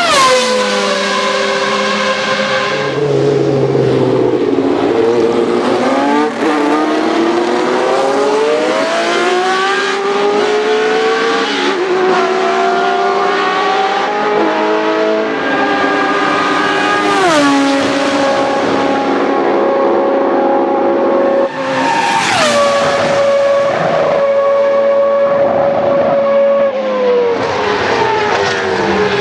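Historic Formula 1 cars' high-revving racing engines lapping at speed. Several cars pass in turn, their engine notes climbing through the revs, and the pitch drops sharply as a car goes by, about a quarter and three quarters of the way in. Two engines are running together near the end.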